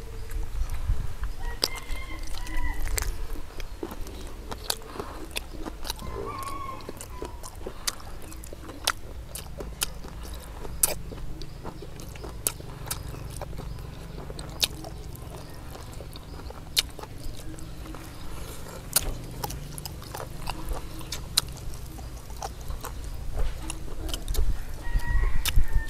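People eating a beer-braised pig's head with their hands, chewing and biting into crunchy cartilage. Many sharp clicks and cracks are scattered throughout.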